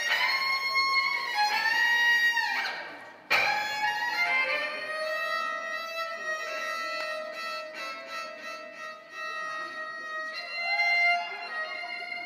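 Solo violin playing long sustained notes, with sliding pitch in the opening seconds, a brief break a little over three seconds in, then a sharp new bow stroke and long held notes.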